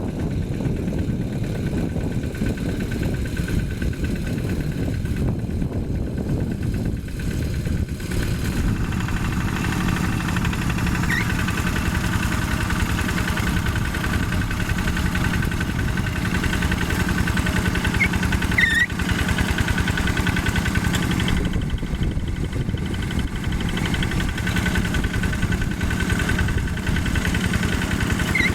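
Yanmar single-cylinder diesel engine of a Quick G1000 hand tractor running steadily while ploughing topsoil, its note filling out and getting a little louder about a third of the way in.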